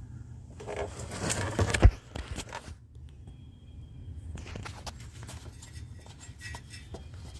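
Small metal parts being handled, clinking and scraping, with one sharp knock about two seconds in, then a short quiet spell and scattered light clicks.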